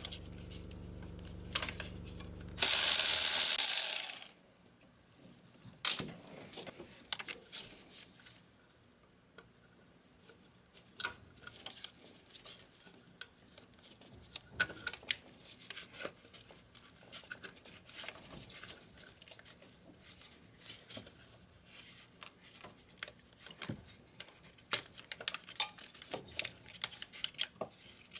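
A cordless electric ratchet runs in two spells during the first four seconds, the second much louder. After that come scattered light metallic clinks and rattles of bolts, tools and parts being handled.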